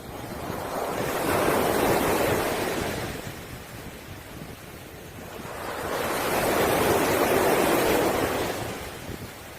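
Sea waves breaking and washing over a pebble beach, two waves in turn: each surge swells up over a second or two, holds, then drains back away.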